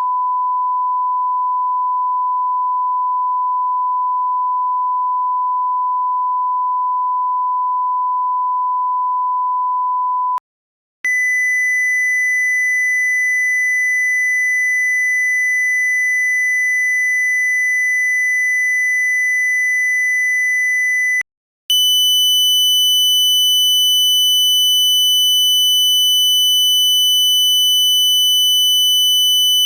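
Hearing-test pure sine tones: a steady, clean electronic tone held for about ten seconds, stopping briefly, then returning higher for another ten seconds, and stepping up in pitch once more about two-thirds of the way through.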